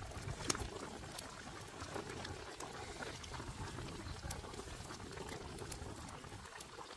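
Pot of fish soup with water spinach and chillies boiling, bubbling steadily with scattered sharp pops.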